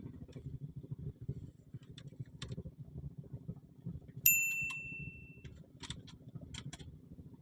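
A small metal bell rings once with a clear ding about four seconds in, fading over about a second. Scattered light clicks and a steady low rumble go on around it.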